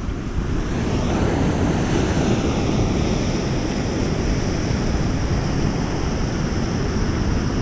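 Ocean surf breaking on the shore, with wind buffeting the microphone: a steady rushing noise without a break.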